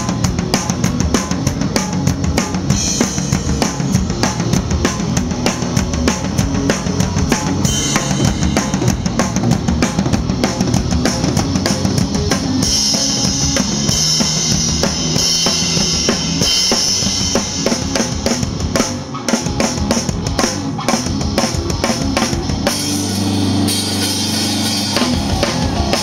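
Live rock band playing without vocals: the drum kit is loudest, with rapid bass drum, snare and cymbal hits, under electric bass and guitar. Near the end a held low chord rings under the drums.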